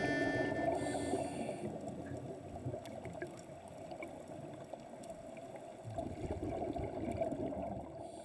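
Muffled underwater sound of a scuba diver breathing out, the exhaled bubbles gurgling and rumbling, swelling again about six seconds in, with a few faint clicks.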